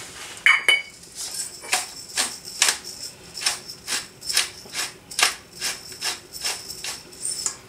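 Hand-twisted pepper mill grinding black peppercorns, a short crunching rasp with each twist, about two a second. A couple of clinks come just before the grinding starts.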